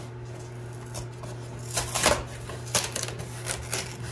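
Small cardboard box being handled, its flaps folded and rubbed: a few short scraping, rustling strokes of cardboard, the loudest about two seconds in, over a steady low hum.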